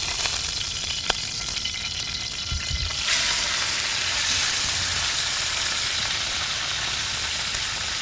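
Wild boar tenderloin pieces searing in hot oil in a cast iron skillet over a wood fire. A light sizzle of hot oil jumps to a loud, steady sizzle about three seconds in, as the meat hits the pan.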